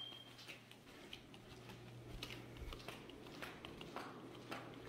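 Faint footsteps: light clicks about twice a second, over a faint low hum.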